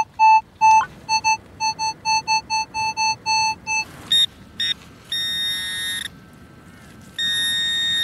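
Minelab metal detector giving a target signal: a mid-pitched electronic beep repeated about three times a second. About four seconds in, a handheld pinpointer takes over with a higher, harsher buzzing tone, first two short blips, then held steady. It breaks off briefly and resumes near the end, locating a buried metal target.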